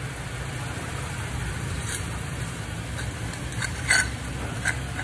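Toyota pickup truck's engine idling with a steady low hum, while a hand brushes gravel pebbles off a stainless steel sign, making a few small clinks and ticks, the sharpest about four seconds in.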